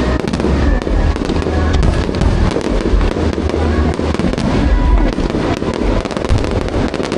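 Aerial fireworks going off in a dense, continuous barrage: heavy low booms with many sharp cracks and crackles layered over them.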